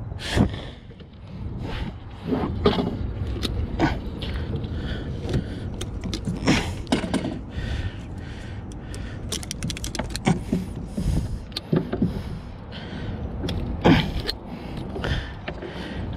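Irregular clicks, knocks and rustling from hands and metal tools working on a boat deck, as a hook is worked out of a big catfish with hemostats. A low steady background noise runs underneath.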